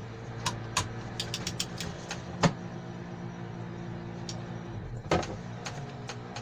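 Light clicks and knocks of hand tools and metal parts as an old gearbox mount is set up in a vise to undo its bolt. A quick run of clicks comes about a second in, then single knocks about two and a half and five seconds in, over a steady low hum.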